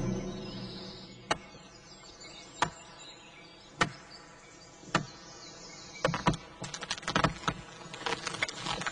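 Axe chopping into a pine trunk: four sharp blows a little over a second apart, then a quick run of cracks and snaps of splintering wood from about six seconds in.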